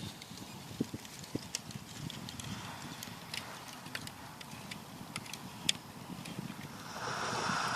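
Breaking-up lake ice drifting off the shore, tinkling and clinking as pieces knock together in many sharp, irregular clicks over a low rumble, with a rush of noise swelling near the end.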